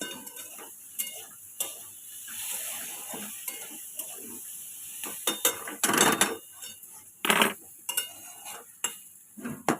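Cooking clatter: a utensil stirring and scraping in a pan, with irregular knocks of metal on pots and dishes and a brief sizzle. The loudest knocks come about six and seven seconds in.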